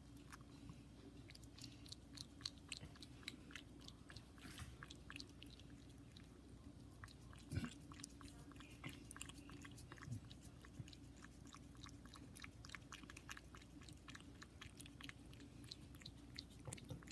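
A cat lapping melted ice cream from a bowl: faint, rapid, irregular tongue clicks over a steady low hum, with one louder thump about halfway through.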